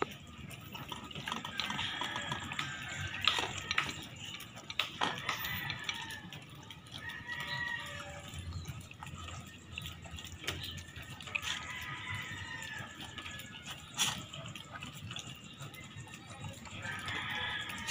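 A dog eating raw ground pork from a stainless steel bowl: wet smacking and lapping, with a few sharp clicks against the metal bowl.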